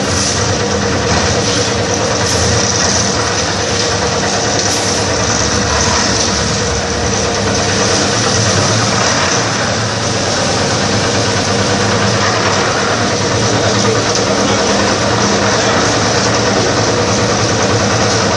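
Engine of a portable drum concrete mixer running steadily, its drum turning as it mixes concrete.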